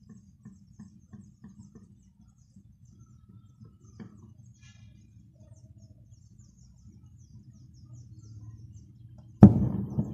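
A homemade 'basuka' cannon going off with a single loud bang about nine seconds in, fading out over about a second.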